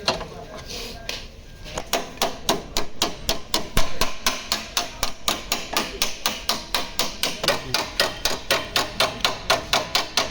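Hammer striking car body sheet metal in quick, even blows, about five a second, starting after a short lull about a second and a half in: panel-beating out crash damage.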